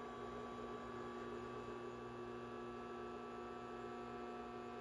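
Induction cooktop humming steadily as it heats an empty pan: a low hum made of several steady tones over a faint hiss.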